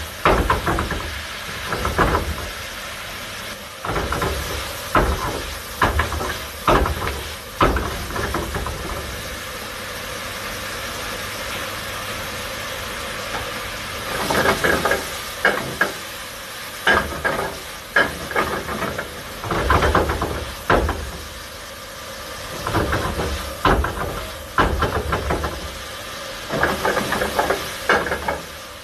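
Vegetables frying in a large pan on a commercial kitchen range, with repeated metallic clanks and scrapes of a utensil against the pan in bursts, over the steady hiss and hum of the kitchen's exhaust hood. The clanking pauses for a few seconds in the middle, leaving only the steady hiss.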